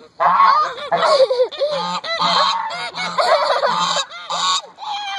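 Domestic geese honking over and over, short arched calls that overlap one another.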